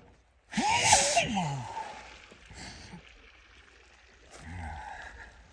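A person sneezing loudly once, about half a second in. A fainter, lower sound follows about four seconds later.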